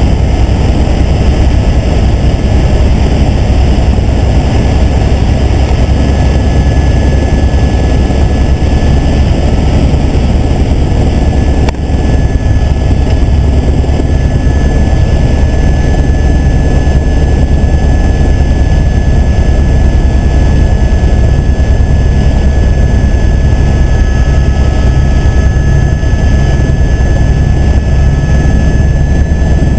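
Helicopter in flight heard from inside the cabin: a loud, steady drone of rotor and engine, heaviest in the low end, with a faint steady high tone over it.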